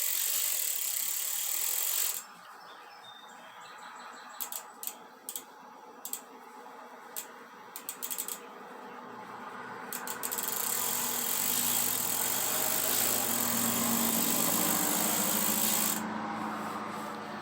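Bicycle chain being pulled through a rag to wipe it dry after cleaning: a steady rubbing hiss, quieter in the middle stretch where a scatter of sharp clicks comes through, then the rubbing picking up again.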